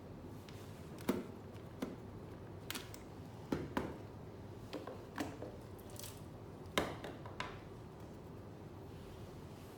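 About ten light clicks and taps at irregular intervals over a faint steady hiss, the sharpest about a second in and near seven seconds.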